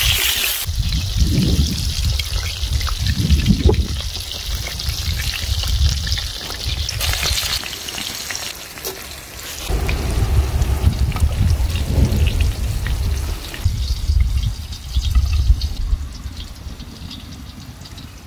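Sausages sizzling as they fry in a black pan over a wood fire, with a few sharp clicks as they are turned with a spatula. A low rumble comes and goes underneath.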